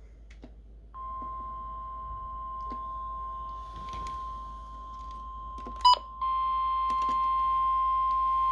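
NOAA Weather Radio warning alarm tone, a steady 1050 Hz beep heard through a radio receiver, signalling that a warning broadcast follows. It comes in about a second in. A brief loud burst comes just before six seconds, and after it the tone is louder.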